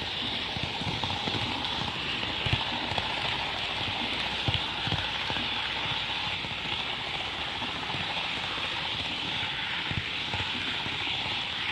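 Kato N scale Shinkansen model train running on layout track: a steady rolling hiss with scattered irregular clicks of the wheels on the rails.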